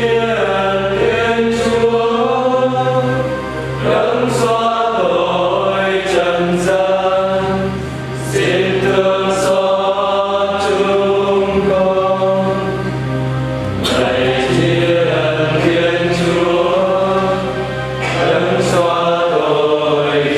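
A choir singing liturgical chant in phrases of four to five seconds, with held notes, over a steady low accompaniment.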